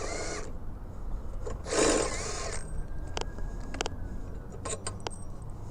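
Two short metallic scraping sounds with a faint squeak, then several light, separate clicks: the muffler being worked loose from a motorcycle's exhaust by hand and tool.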